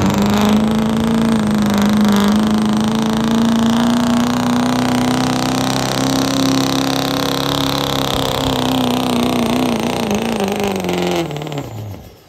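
Pulling truck's engine held at high revs under load, its pitch rising slowly and wavering, then falling as the engine lets off; the sound drops away sharply near the end.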